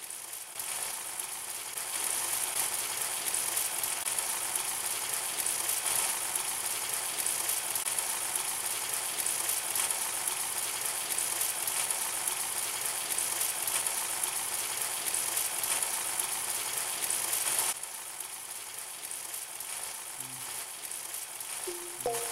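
Potato patties shallow-frying in hot oil on a flat pan: a steady sizzle that gets louder about two seconds in, as more patties go into the oil, and drops a step near the end.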